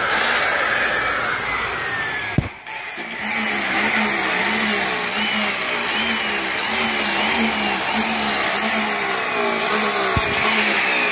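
Right-angle electric polisher with a small, stiff airway buffing wheel running against aluminum lettering during the first cut-and-color pass. Its whine wavers up and down in a steady pulse as the wheel is worked along the letters, with a sharp click about two seconds in.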